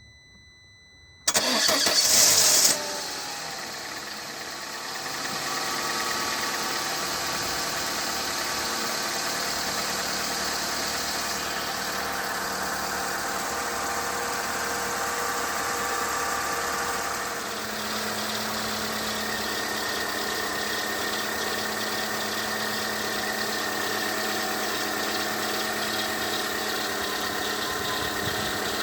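Peugeot 207's ET3J4 1.4-litre 16-valve petrol four-cylinder cranked by the starter and catching about a second in, then idling steadily. From about 19 s a steady high whistle joins the idle: the belt-drive squeal that the owner traced to the auxiliary and timing belts, their pulleys and the water pump, cured only by replacing them all.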